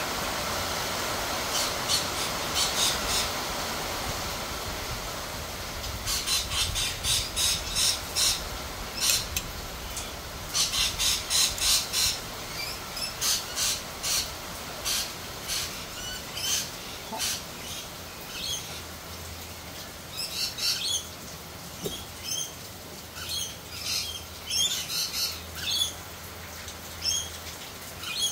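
Steady rain, heaviest in the first few seconds and then easing, with birds calling in repeated bouts of quick, short calls, several a second.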